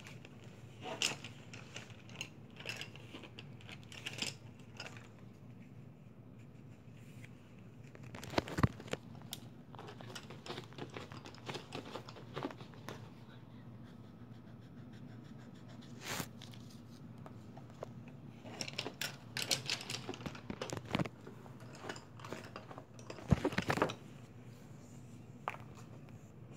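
Paper and plastic sheets rustling and sliding on a desk as a pencil drawing is handled, with pencil scratching and scattered sharp taps and knocks, the loudest about eight and a half seconds in and again near 23 seconds in, over a low steady hum.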